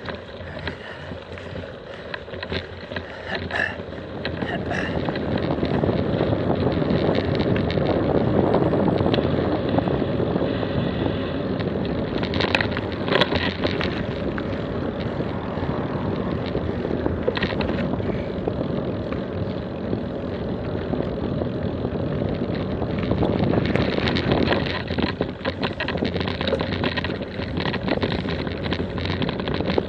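Wind rushing over an action camera's microphone with the rumble of mountain-bike tyres on a rough track, louder after a few seconds. There are a few sharp knocks near the middle.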